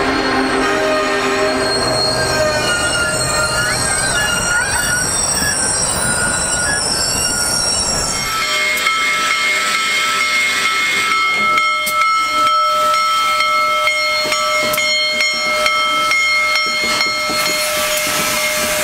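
A train rolls past with wheel rumble and squeal from its cars. About eight seconds in, Union Pacific's 4-8-8-4 Big Boy steam locomotive No. 4014 creeps by close, with steady high-pitched wheel squeal and scattered clanks.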